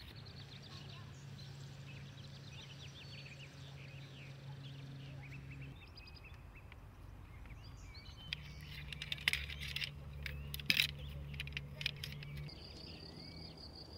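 Small birds chirping over a steady low hum, then about two-thirds of the way through a burst of sharp clicks and clatter from folded, shock-corded tent poles being handled.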